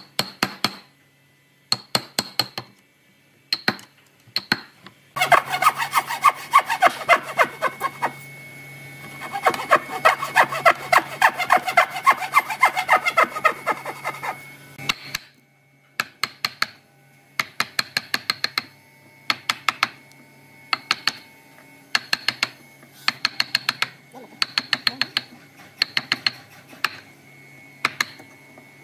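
Hand saw cutting across a wooden beam in quick back-and-forth strokes, in two runs with a short pause between, starting about five seconds in and stopping about fifteen seconds in. Before and after the sawing, sharp knocks in quick groups as a chisel chops out the notch.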